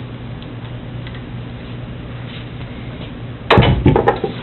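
A steady low hum, then, about three and a half seconds in, a quick run of loud knocks and clatter from hard objects being handled.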